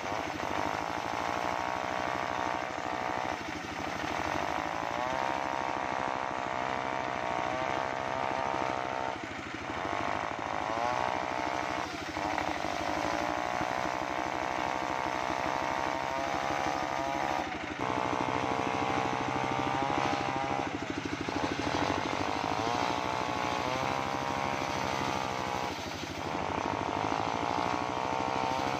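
Engine-driven portable circular saw bench (serkel) ripping jackfruit heartwood planks. The engine runs steadily, and its note sags and recovers about six times as the blade takes each cut.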